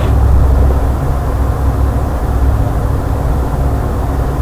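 Steady low rumbling background noise picked up by an open microphone, with a faint hum. The recorder puts this down to city noise pollution echoing through a 'sound tunnel'.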